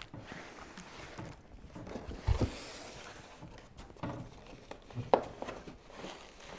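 Handling noises from unpacking a monitor's cardboard box: rustling of the box and packing pieces, a dull thump about two seconds in and a sharper knock about five seconds in.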